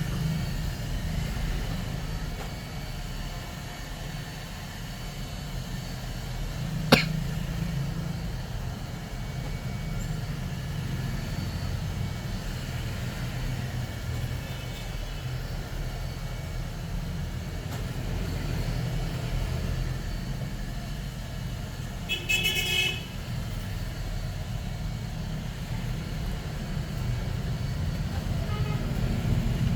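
Steady street traffic rumble with a short vehicle horn toot about 22 seconds in, and a single sharp click about 7 seconds in.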